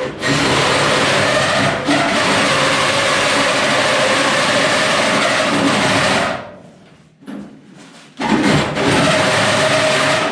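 Cordless drill running under load while drilling a hole, with a steady motor whine. It stops for about two seconds after six seconds, then starts again.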